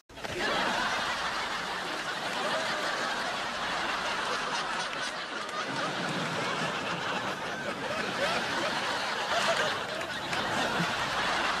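A crowd laughing, a dense din of many voices that cuts in suddenly.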